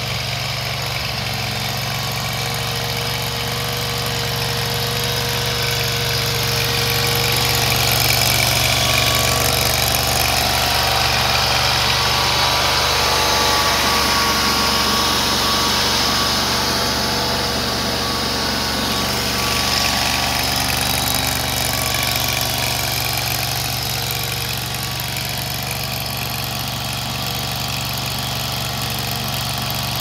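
Small gasoline engine of an AGT LRT23 mini tracked skid steer loader running steadily. It grows a little louder through the middle stretch, then eases back.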